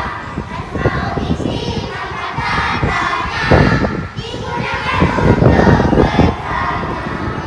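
A crowd of young children's voices, chattering, shouting and singing over one another, with heavy thuds about halfway through and again a little later.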